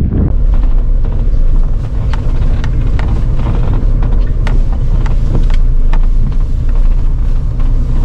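Wind buffeting the microphone in a loud, steady low rumble, with scattered sharp clicks through it.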